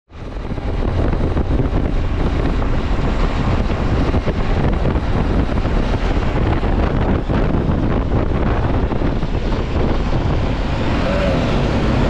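BMW G 310 GS single-cylinder motorcycle engine running steadily under way, with wind rushing over the action camera's microphone.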